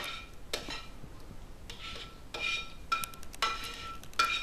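Kitchen tongs scraping and clinking against a frying pan as cooked mushrooms are pushed out into a glass bowl: a string of scrapes and clinks, several of them ringing briefly.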